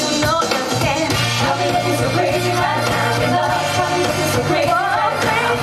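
Pop song with singing over a steady beat, playing continuously and loud as backing for a dance routine.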